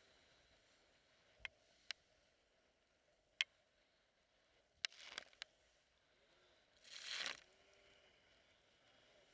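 Near silence broken by a few single sharp clicks, a quick cluster of clicks about five seconds in, and a brief hiss lasting about half a second near seven seconds.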